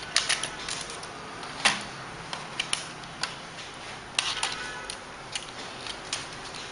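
Irregular light clicks and taps of hands working on a laptop's plastic chassis while its wireless antenna cable is pulled through, scattered unevenly, the loudest about a second and a half in.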